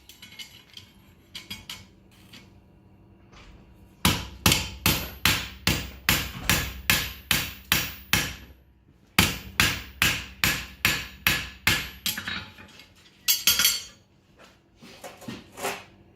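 Farrier's hammer striking a hot steel horseshoe on the anvil with a metallic ring, in two quick runs of blows (about a dozen, a short pause, then about eight more), followed by a few lighter taps near the end. The nail holes in the shoe are being punched.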